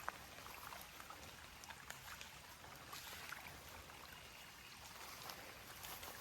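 Faint trickling of rain runoff flowing out of a pond, with a few small ticks.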